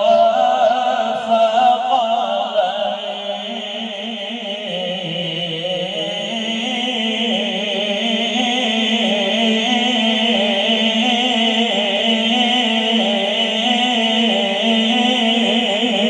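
A man's voice chanting devotional verses unaccompanied, drawing out long melismatic lines with heavy vibrato over a steady low hum.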